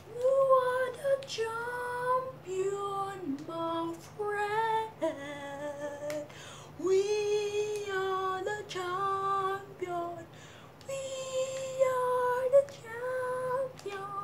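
A woman singing unaccompanied, a string of held notes in short phrases with brief breaks between them.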